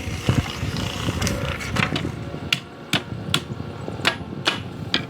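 Wood knocking and cracking at a cone wood splitter: a clatter of sharp knocks, turning in the second half into single sharp knocks about half a second apart.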